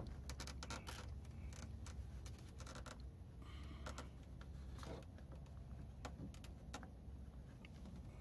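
Faint scattered light clicks and rustles of hands handling a plastic wheel-arch piece, over a low steady hum.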